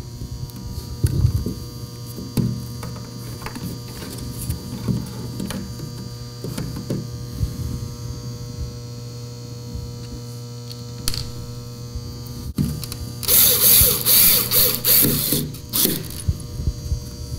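A plastic mounting bracket being handled and screwed onto a plastic electrical outlet box: scattered small clicks, knocks and scrapes over a steady low hum, with a louder stretch of rubbing and scraping lasting about three seconds near the end.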